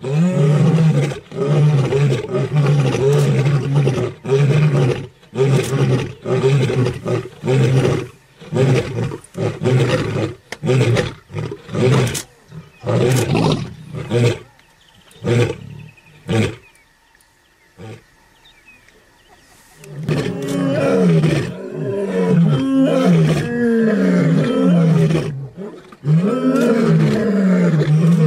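A group of male lions roaring together: deep, long roars, then a run of short grunts that spaces out and fades. After a lull of a few seconds, a new round of roaring starts.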